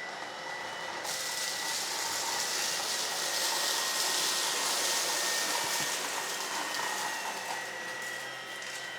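Tineco PURE ONE S11 cordless stick vacuum running in auto mode, its brushless motor giving a steady high whine under a rushing airflow hiss while it picks up dry debris on a hard floor. It grows louder about a second in and eases off near the end.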